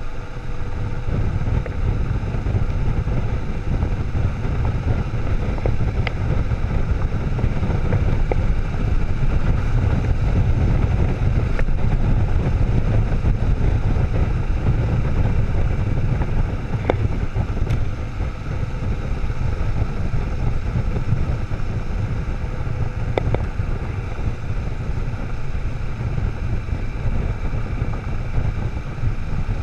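Kawasaki motorcycle riding a gravel road at steady speed: heavy wind noise on the microphone over the engine and the tyres on loose gravel, with a few sharp ticks.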